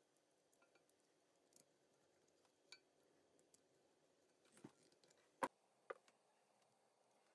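Faint clicks and small scrapes of a screwdriver turning a brass terminal screw on an electrical outlet, then two sharper clicks near the end, the first the loudest, as the parts are handled and set down.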